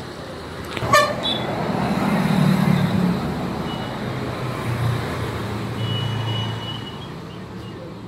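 Street traffic: a motor vehicle's engine rumbles past, swelling and fading twice, with several short horn toots, one held a little longer near the end. A sharp click sounds about a second in.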